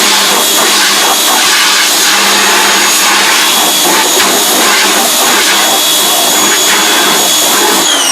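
Pressure washer running and blasting a water jet over a screen-printing screen to rinse out the degreaser, ink and emulsion: a loud, steady spray with a motor whine. Just before the end the machine shuts off and its whine falls away in pitch.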